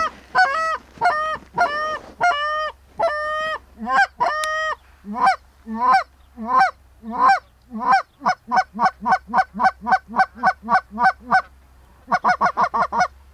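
Canada goose call blown in a steady series of honks, each breaking from a low note to a high one, speeding up about eight seconds in to about three short clucks a second, then a quick rattle of clucks near the end: calling to an incoming flock of Canada geese.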